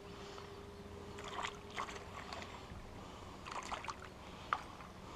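Hooked perch splashing at the water surface while being reeled in: several short splashes in two clusters, with a sharp tap near the end.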